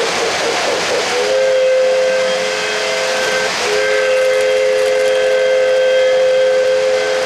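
Whistle of a Lionel PRR S2 turbine O-gauge locomotive's sound system blowing two long blasts, several tones sounding together, the first starting about a second in and the second after a brief break. A steady hiss of the running train lies under it.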